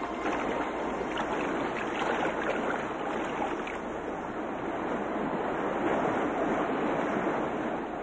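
Choppy open-sea water churning and sloshing, a steady rushing wash of waves.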